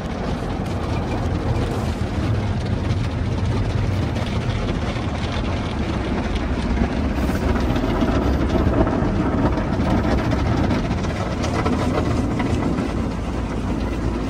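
Automatic car wash spraying water and soap over the car, heard from inside the cabin: a steady rushing wash noise over a low machinery rumble, a little louder in the middle.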